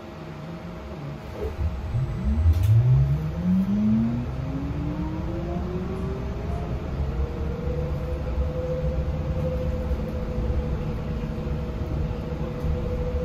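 Yutong E12 battery-electric bus's traction motor whining as the bus pulls away, heard inside the cabin. The whine rises in pitch for about six seconds as the bus gathers speed, then holds steady at cruising speed over road rumble. There is a single click about two and a half seconds in.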